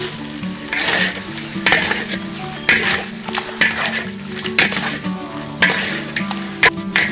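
Food sizzling in a hot pan as it is stir-fried, a spatula scraping through it about once a second.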